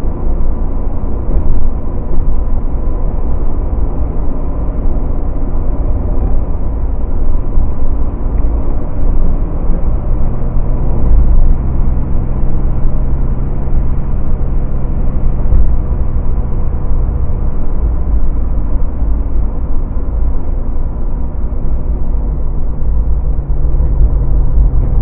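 A 1967 Chevrolet Corvair's air-cooled flat-six running at speed, heard under heavy steady road and wind rumble. An engine note stands out for several seconds from about ten seconds in, and again near the end.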